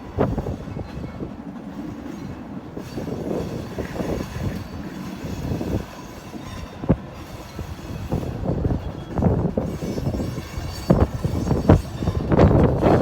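Freight train of grain hopper cars rolling past, with a steady rumble of wheels and a run of irregular metallic clanks and bangs from the cars, more of them in the second half.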